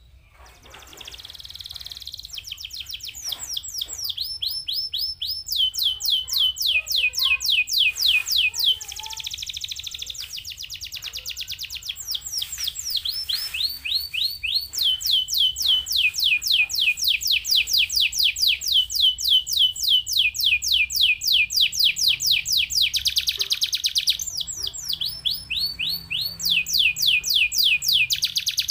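Domestic canary singing a long, continuous song of rapid trills: fast runs of repeated downward-sliding whistled notes, switching to a new trill every few seconds, with buzzier rolling passages in between. The song fades in over the first few seconds.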